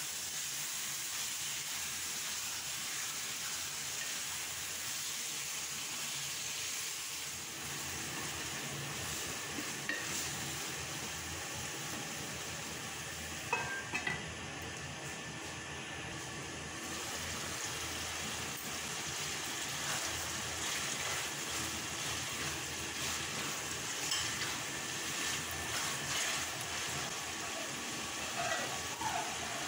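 Minced mutton sizzling in oil in an aluminium pot while it is stirred with a spatula. About fourteen seconds in, a few sharp metal clinks come as the lid goes onto the pot, and the steady sizzle goes on.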